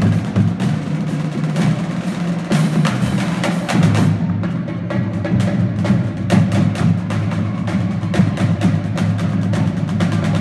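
High school marching drum line playing: a dense, fast run of snare and tenor stick strokes over the low tones of the bass drums.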